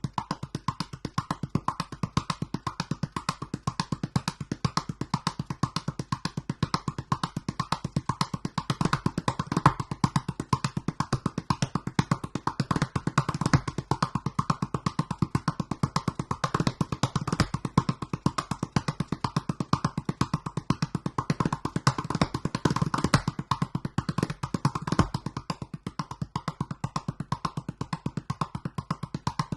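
Large 47 cm calabash gourd drum played with the hands: a fast, even stream of strokes, several a second, with deep bass tones that come through stronger in a few places.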